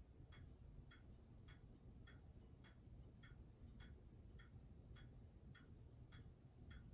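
Kienzle spring-driven pendulum wall clock ticking steadily and faintly, a little under two even ticks a second from its escapement.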